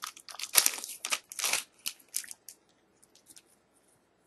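Syringe peel pack of paper and plastic being torn open, crinkling and crackling in a quick run of short bursts, then a few faint ticks near the end.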